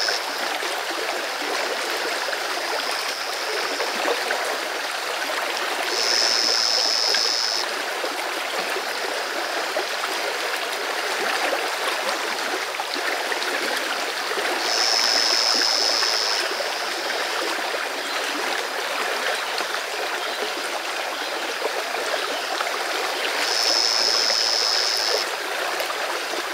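Stream water running steadily, with a high, even-pitched call about a second and a half long sounding three times, roughly nine seconds apart.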